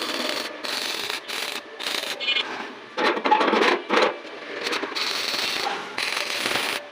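Metalworking noise in short bursts of crackling and scraping that stop and start every second or so, louder and denser about three seconds in.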